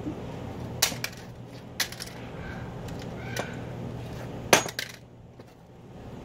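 A cheap plastic camcorder being smashed: about five sharp blows crack its plastic housing, the loudest a little past halfway. A steady low hum runs underneath.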